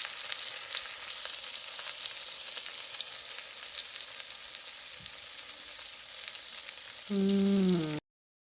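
Chicken breasts sizzling in a hot cast iron skillet, a steady frying hiss. About seven seconds in, a short, louder pitched sound like a hummed or sung note comes in, then everything cuts off suddenly.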